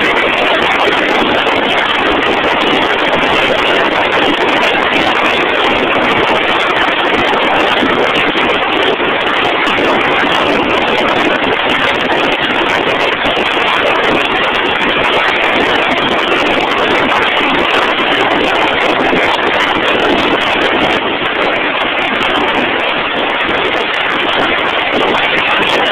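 Loud, steady machinery noise from a drill rig running, an even roar with no distinct beat or pitch changes.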